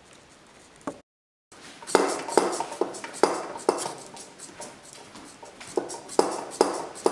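Hard objects knocking and clinking together in an irregular run of sharp strikes, each with a brief ring, after a moment of dead silence.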